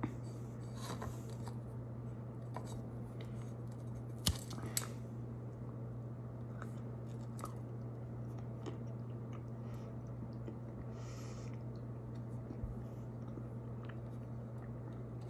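Chewing and crunching on a rock-hard, over-microwaved cookie: scattered small crunches, with two sharper cracks about four seconds in, over a steady low hum.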